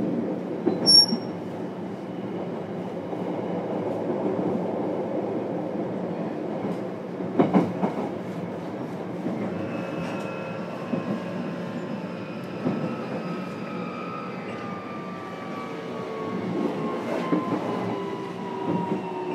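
JR Kyushu 303 series electric train heard from inside its motor car, running on the rails with a cluster of knocks about seven seconds in. From about halfway through, the traction motor whine falls steadily in pitch as the train brakes for its stop.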